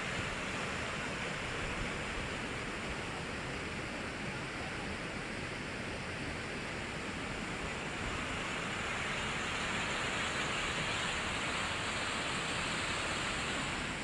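Fast-flowing stream churning white over rocks: a steady rushing of water, slightly louder in the second half.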